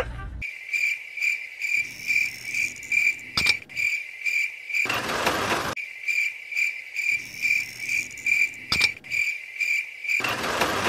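Cricket chirping steadily, a high pulsed chirp about twice a second, with a few sharp clicks and a short burst of rustling noise midway.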